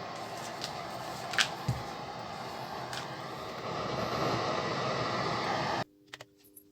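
Steady static hiss from the speakers of a just-switched-on car stereo amplifier, with a couple of faint ticks; it cuts off suddenly near the end, leaving a few soft clicks over a low hum.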